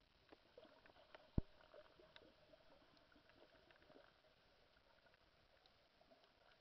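Faint underwater sound over a coral reef: scattered small clicks and crackles, with one sharp knock about a second and a half in.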